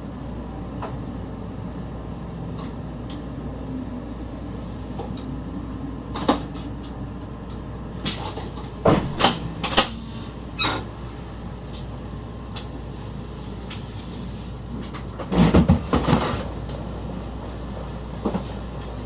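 Steady low hum inside a train driver's cab, broken by a series of sharp knocks and clunks, several close together about 8 to 10 seconds in and a louder clatter around 15 to 16 seconds in.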